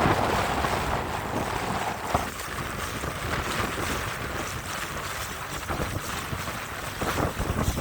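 Wind buffeting the microphone over the steady rush of water from a boat under way, louder for the first couple of seconds.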